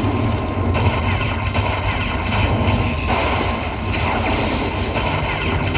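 Lightning Cash Moon Race slot machine's bonus sound effects: a loud, steady rumbling noise mixed with game music.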